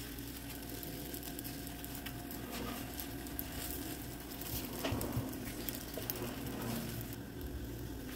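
Folded roti frying on an electric griddle with a low sizzle, while hands in plastic gloves press and turn the pieces: crinkling of the gloves and soft pats on the dough, a little louder about five seconds in.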